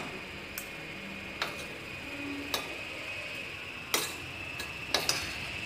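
Steel spoon knocking lightly against the inside of a stainless steel pressure cooker while stirring cooked khichdi: a handful of short, light clicks about a second apart.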